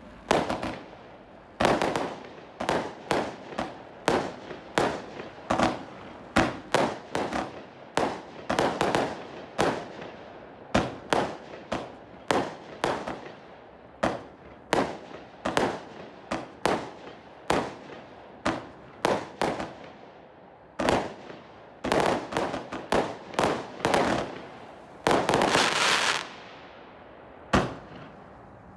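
Lesli Empire State Show, a 161-shot compound fireworks cake, firing a steady run of sharp bangs, about one or two a second, each trailing off. Near the end comes a longer unbroken burst of about a second.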